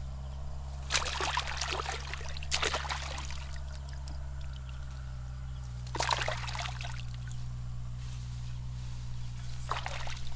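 Wet grass and mud rustling and squelching in four short bursts as a long-handled multi-pronged eel rake and hands are worked through a marshy patch. Under it runs a steady low hum that stops abruptly near the end.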